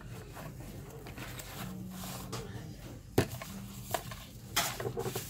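Unboxing handling noise: a small plastic alarm clock is slid out of its cardboard box and its thin plastic wrap rustles and crinkles, loudest near the end. There is a sharp knock about three seconds in.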